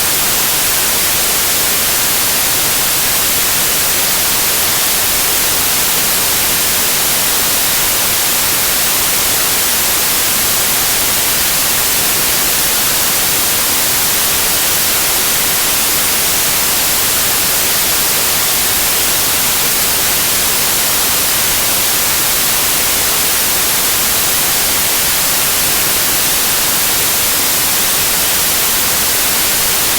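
Steady white noise like TV static: an even, unchanging hiss, strongest in the high frequencies.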